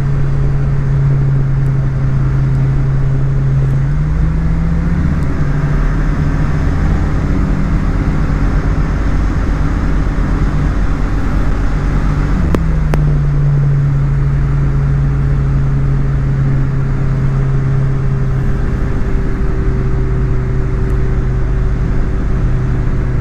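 Cessna 152's four-cylinder piston engine running at low power, heard from the cockpit while taxiing. The engine tone rises about four seconds in and drops back to its lower setting about twelve seconds in.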